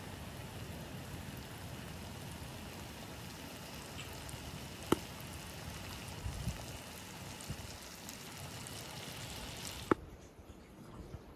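Meat and vegetables sizzling on a hot saj griddle: a steady hiss with two sharp pops, about five seconds in and near the end, after which the hiss drops away.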